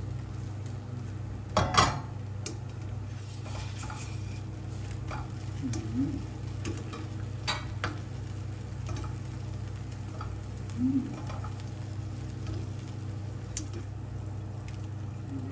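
Egg-dipped bread frying in a stainless steel pan while a plastic spatula scrapes and knocks against the pan; the loudest knocks come about two seconds in and again near eight seconds, over a steady low hum.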